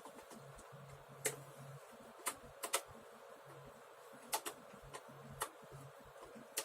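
Irregular sharp clicks and taps of hands and tools working on an HP computer's casing and parts during a RAM upgrade, about eight in all, with a quick double click near the middle.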